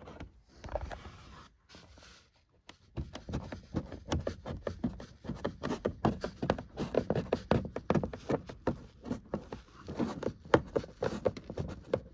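A dash cam power cable being pressed by hand into the gap between the car's headliner and plastic pillar trim: a dense run of small scrapes and clicks of fingers and cable on the plastic, after a brief lull near the start.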